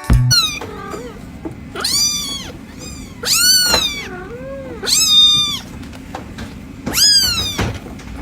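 A cat meowing over and over: four loud, high-pitched meows, each rising and then falling in pitch, with a fainter, lower meow between the second and third.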